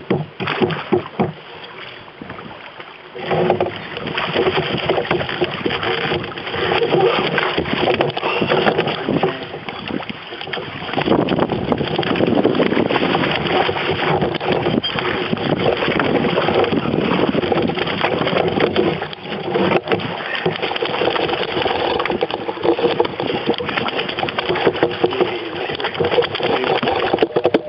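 Canoe moving through a riffle on a small river: water rushing and splashing around the hull, with a constant clatter of knocks against the canoe.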